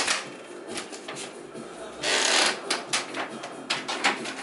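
Things being rummaged through and moved in a small storage closet: rustling, scraping and scattered knocks and clicks, with a longer, louder rustle about two seconds in.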